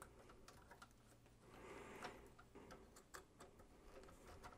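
Faint, scattered clicks and a soft rustle of plastic SATA power connectors and cables being handled and pushed onto hard drives.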